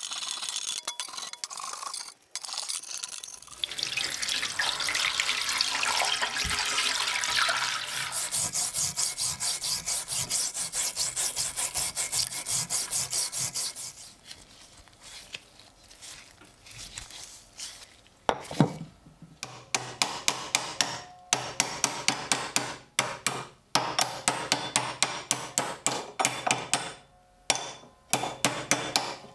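Thick rust being scraped off an old steel pickaxe head with a flat steel scraper, in steady strokes that fall into a quick rhythm of about two or three a second. After a quieter stretch come runs of sharp hammer taps, a few a second, on the pickaxe clamped in a vise, knocking at its rusted pins.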